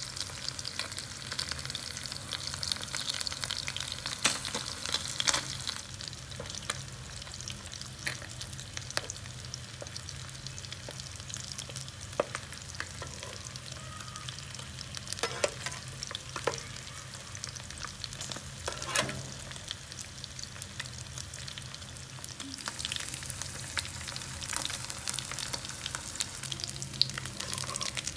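Fish pieces sizzling and crackling as they fry in shallow oil in a nonstick pan. Every so often a metal spatula scrapes and knocks against the pan as it turns them.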